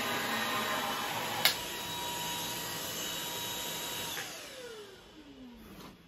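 Ultenic U10 cordless stick vacuum's brushless motor running with a steady high whine, with a sharp click about a second and a half in. About four seconds in it is switched off, and the whine falls steadily in pitch as the motor spins down.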